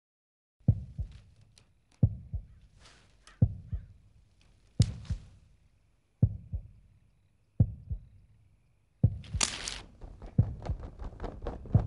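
Heartbeat sound effect: deep double thumps, about one every second and a half, coming faster and denser near the end, when a short hissing rush joins them.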